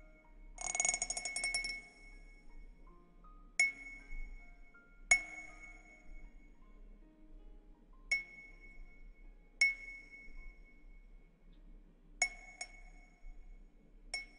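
A small chime struck again and again, each strike ringing one clear high note. A quick shimmering flurry of strikes comes about a second in, then seven single strikes a second or more apart, with faint background music underneath.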